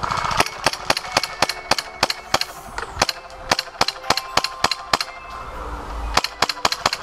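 Airsoft gunfire: a rapid, uneven string of sharp cracks, several a second.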